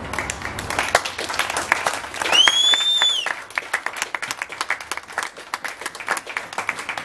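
Audience applauding, with a loud, high whistle from the crowd about two seconds in that rises, holds for about a second, then falls.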